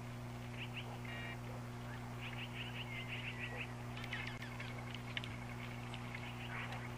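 Small birds chirping in quick runs of short, falling notes, over a steady low hum.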